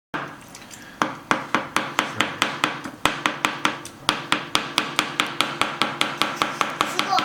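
Kitchen knife chopping quickly on a cutting board, a steady run of sharp strokes about four to five a second, starting about a second in.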